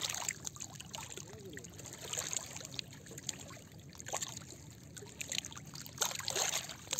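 Quiet lakeshore ambience: faint water lapping against the shore stones, with scattered light clicks and knocks from handling the fishing rod and shifting stones, a little busier near the end.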